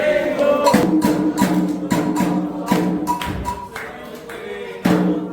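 Candomblé ritual percussion: the end of a sung chant line gives way, less than a second in, to hand drums struck in a rhythmic pattern, with a bell-like ringing tone between the strokes.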